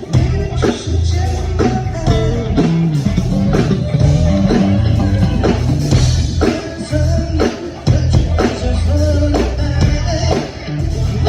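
Rock band playing live, with a Fodera Emperor Deluxe five-string electric bass moving through pitched low notes under a drum kit's steady hits, and a higher melodic line over them.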